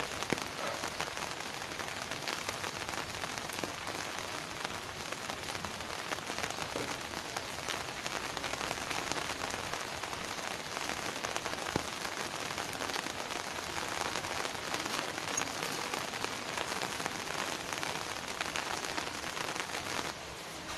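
Steady heavy rain falling, a dense patter of drops on surfaces, dropping a little in level near the end.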